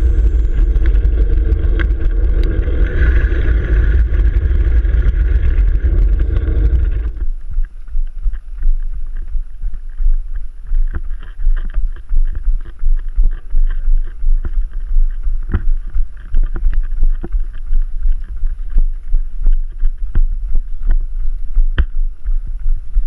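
Music for about the first seven seconds, cutting off abruptly. Then the camera's own sound takes over: wind rushing on the microphone with regular knocks of a runner's footfalls, about two a second.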